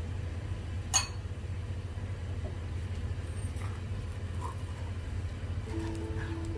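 A stone mortar clinks once, sharply, about a second in as it is lifted off the counter, over a steady low hum. Soft background music notes come in near the end.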